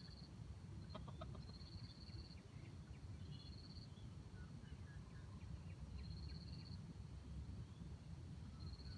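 Faint outdoor ambience: a short, high, pulsing trill repeats about every two seconds over a low rumble, with scattered faint chirps in between.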